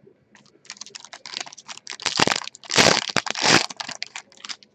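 Foil wrapper of a Panini Prime Signatures trading-card pack being torn open and crinkled by hand: a run of crackling rustles that starts about half a second in and is loudest in the middle.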